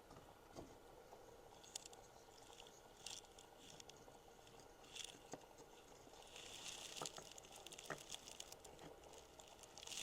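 Near silence: room tone with faint scattered clicks and a soft rustle about six seconds in.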